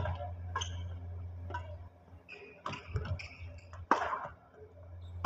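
Badminton play: sharp cracks of rackets hitting a shuttlecock, the loudest about four seconds in, with short squeaks of shoes on the court surface over a steady low hum.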